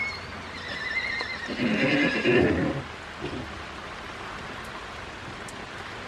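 Horse neighing once, a call of about two seconds that starts high and wavering, then turns lower and louder before it stops.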